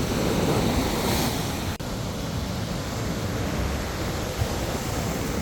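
Steady rush of sea surf, with wind on the microphone.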